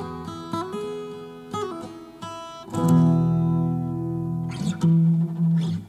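Acoustic guitar playing an instrumental ending: single plucked notes, then strummed chords ringing out from about three seconds in, with a few more strums near the end.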